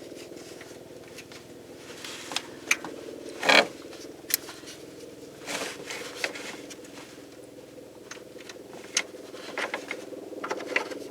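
Hand work on parts in an engine bay: a string of scattered small clicks, taps and rattles of metal and plastic pieces being handled and fitted, the loudest a little over three and a half seconds in, over a steady low hum.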